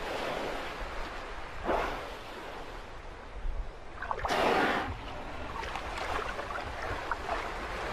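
Sea water washing at the edge of the sea ice, with a few short rushing bursts. The loudest comes about halfway through, as an orca surfaces along the ice edge.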